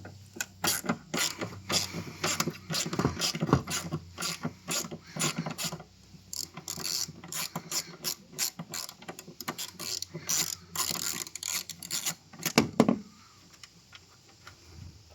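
Ratchet wrench clicking in quick runs of strokes while loosening a tight 10 mm tail-light screw. The clicking stops about two seconds before the end.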